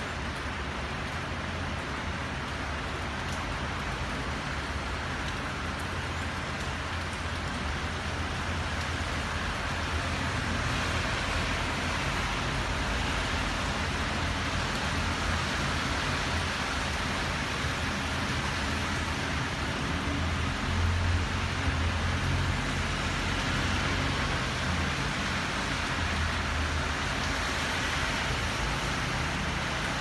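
Steady storm rain falling on the street and roofs, mixed with the sound of traffic on the wet road. A low rumble under it swells briefly about twenty seconds in.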